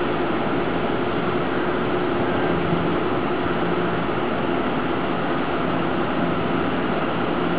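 TEMU1000 Taroko Express tilting electric multiple unit standing at the platform, its onboard equipment giving a steady hum and whir with a low drone.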